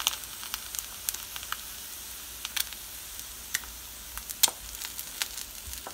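Two eggs frying in a ceramic non-stick pan, sizzling with a steady hiss and irregular sharp pops and crackles.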